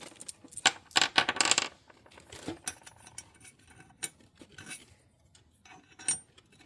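Small metal engine parts clinking and scraping together as they are handled during reassembly of a Kawasaki FB460V engine. There is a quick cluster of clinks and rattles in the first two seconds, then a few single clinks, the last one ringing briefly near the end.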